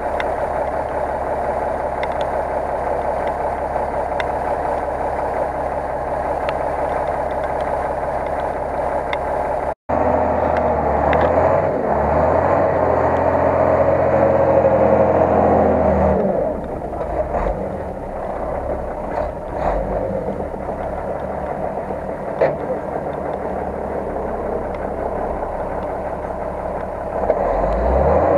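Engine of a big-tyred off-road truck built on a ZIL Bychok cab, running steadily as the truck crawls through mud. After a brief cut about ten seconds in it runs louder under load for several seconds, then eases back to a lower run, picking up again near the end.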